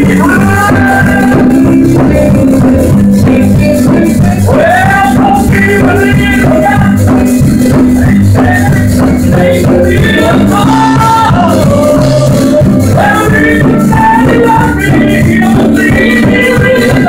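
A religious song: a voice singing a melody over steady instrumental accompaniment.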